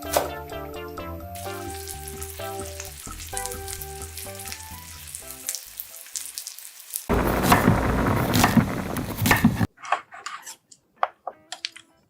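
Food frying in a hot pan: a loud sizzling hiss with crackles lasting about two and a half seconds, cutting off suddenly, followed by a few light clicks. Background music plays over the first half.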